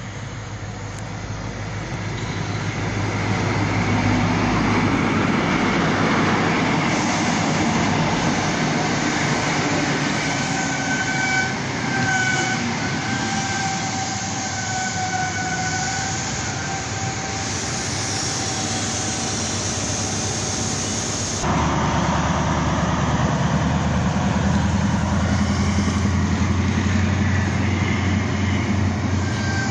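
Diesel passenger train running into the station, its rumble growing louder over the first few seconds. A high, wavering squeal from the running gear sounds for about ten seconds as it slows. About two-thirds of the way through the sound changes abruptly to a steady low engine hum.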